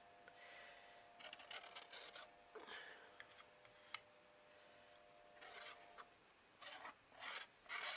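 Faint scraping and rubbing strokes as excess modelling paste is taken off around the edge of a stencil, in several short runs, with a single click about four seconds in.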